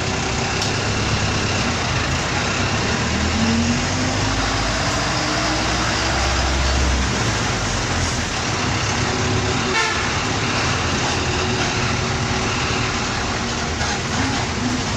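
Bus engine running while the bus drives, its pitch rising as it picks up speed about three seconds in, then a heavy low rumble for a few seconds. A single sharp knock about ten seconds in.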